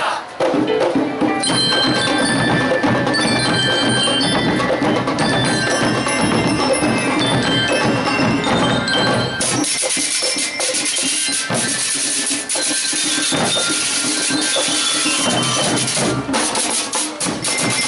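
Marching band percussion: a bell-like melody rings over drums. About nine and a half seconds in, crashing cymbals and snare drums come in loudly and keep up a fast beat.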